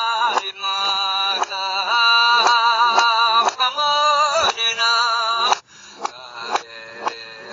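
Music: a singing voice over a steady beat of about two strikes a second. A little past five seconds in, the voice stops and the backing carries on more quietly.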